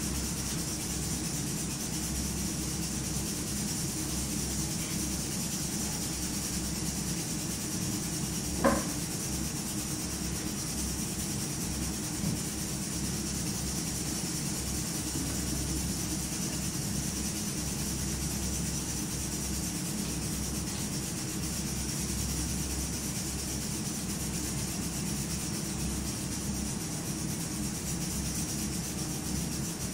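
Steady low hum and hiss of room tone, with one short sharp sound about nine seconds in and a fainter tick a few seconds later.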